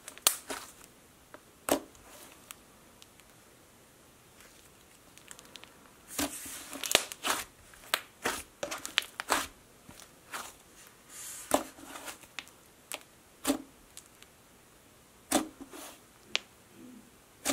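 Pink clay slime being squeezed and pressed by hand, giving short sharp squishy pops and crackles at irregular moments, some in quick clusters, with a lull of a few seconds near the start.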